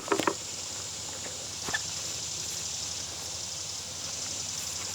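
Steady high-pitched chirring of insects, likely crickets. A sharp click comes right at the start, a few lighter knocks follow within the first half second, and one more knock comes about a second and a half later.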